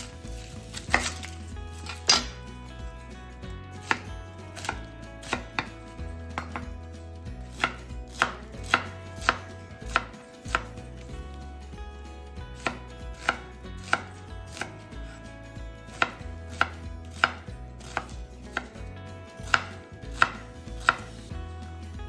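Knife chopping food on a cutting board: single sharp chops, roughly one to two a second, in an uneven rhythm.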